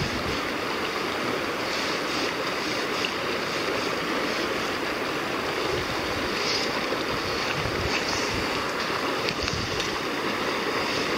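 Steady rush of the Provo River's current flowing close by.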